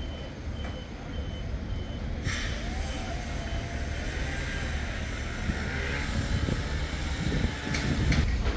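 Reversing alarm of a construction vehicle beeping about twice a second, over a low vehicle rumble; about two seconds in a loud rushing noise sets in abruptly and runs until shortly before the end.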